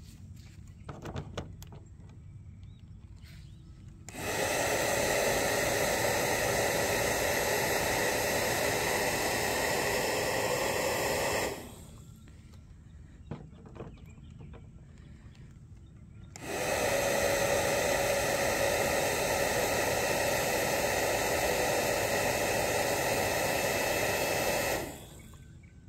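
Bubble gun's fan motor whirring with a steady whine, run twice for about seven and eight seconds with a pause of a few seconds between, starting and stopping abruptly.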